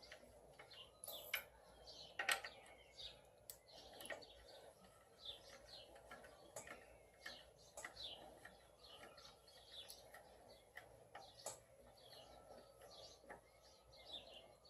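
Faint birdsong: many short, high chirps repeating throughout, with a few sharp clicks scattered among them, the loudest about two seconds in.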